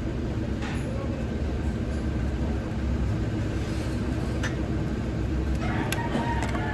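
A steady low mechanical rumble, with a few light clicks and taps over it.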